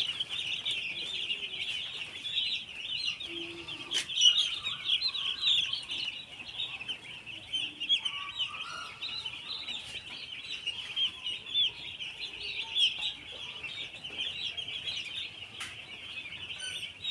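A large flock of broiler chickens calling all at once: a dense, steady chorus of high chirps and clucks, with a couple of sharp clicks.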